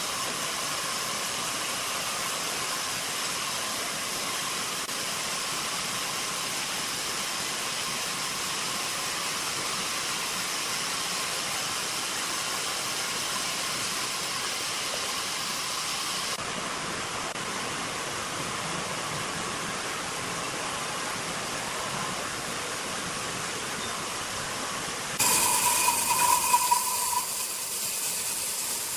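Sawmill machinery running steadily: a continuous hissing noise with a faint whine. About 25 seconds in, the sound changes suddenly to a louder passage with a higher whine that lasts about two seconds, then settles back to the steady noise.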